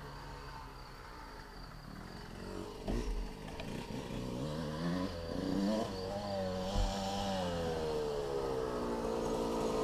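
Motocross bike engine on the track, revving up and down and getting louder as the bike approaches near the end. Two short dull thumps, about three seconds in and near seven seconds.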